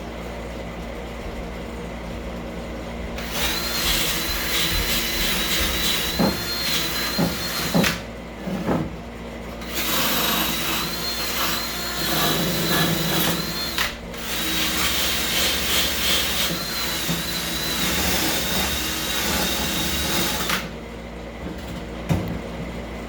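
Electric power tool run in three long bursts with short pauses between, a steady high motor whine over a loud hiss, working surface rust off a truck's hood hinge.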